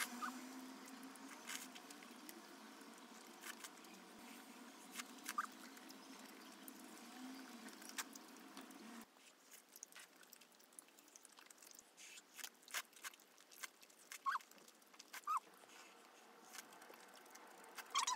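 Close-up eating sounds of chewy tteokbokki rice cakes: soft chewing, mouth smacks and light clicks of metal chopsticks against the plate. A low steady hum underneath cuts out about halfway through.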